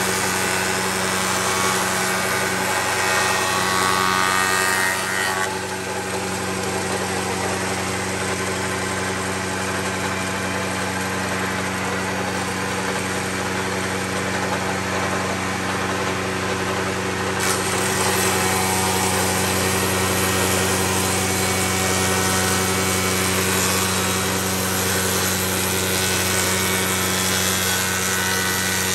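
Bench-top spindle moulder running steadily, its motor holding a constant hum while the spinning cutter head shapes the edge of a hand-fed wooden board with a dense cutting hiss. The cutting sound shifts abruptly about five seconds in and again near the middle.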